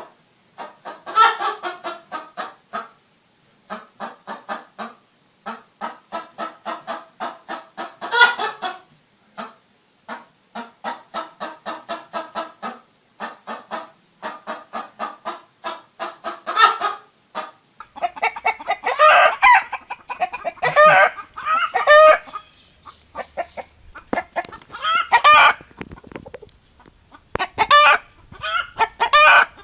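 Hens clucking: rapid runs of short clucks, several a second, each run rising into a louder squawk every few seconds. About eighteen seconds in the sound changes to louder, harsher squawking calls from chickens, coming in bursts with short gaps.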